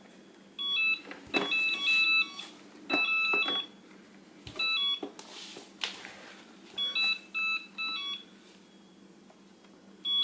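Self-balancing hoverboard beeping: groups of short electronic beeps stepping between a few high pitches, repeated several times, with a few sharp knocks mixed in.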